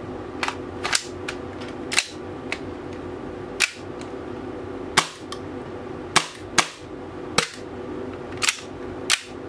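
Tokyo Marui Hi-Capa gas blowback airsoft pistol being test-fired after repair, its slide cycling with a sharp crack on each shot, about eleven shots spaced irregularly.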